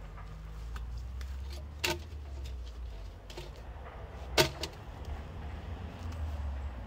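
A log being shifted on a metal sawhorse by hand, giving two sharp knocks about two and a half seconds apart, the second louder, over a low steady rumble.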